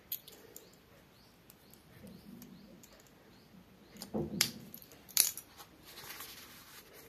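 Light clicks and taps of a plastic pen and its cap being handled, with a louder knock about four seconds in and a sharp click about five seconds in. Near the end, rustling as a plastic-covered diary is picked up and handled.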